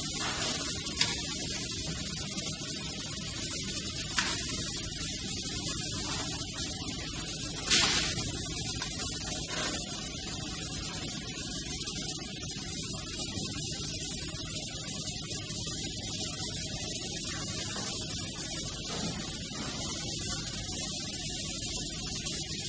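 High-frequency PVC welding machine running with a steady hiss, broken by a few short clicks about 1, 4 and 8 seconds in.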